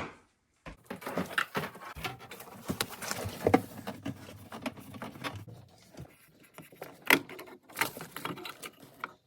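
A run of irregular clicks, taps and rustles from hands working with small parts.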